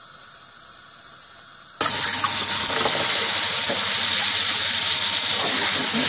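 Hot vegetable oil in a stainless steel frying pan sizzling loudly as peeled boiled eggs coated in turmeric are tipped in, starting suddenly about two seconds in and holding steady after. Before that there is only a faint steady hiss.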